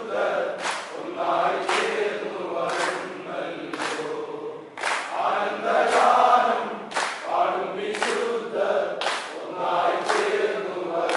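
Snake boat crew chanting together in time with the stroke, with sharp splashes of many paddles hitting the water in unison about once a second.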